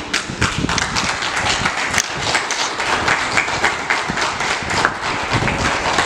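A small group of people applauding, a dense uneven patter of handclaps.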